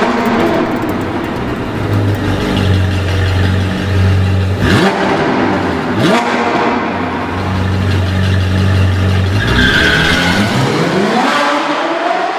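Sports car engine revving over a steady low drone, with two quick rising revs in the middle and a long rising rev near the end.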